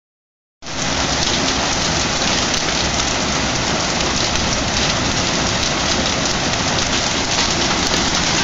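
Heavy hailstorm, with golf-ball-sized hail and rain pelting down as a dense, steady hiss and clatter. It cuts in suddenly just after half a second in.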